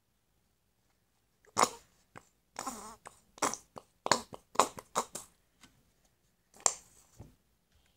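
A plastic bottle of thick clear glue being squeezed hard, sputtering air and glue out of its nozzle in a string of short spurts. The glue is nearly used up and too thick to flow freely.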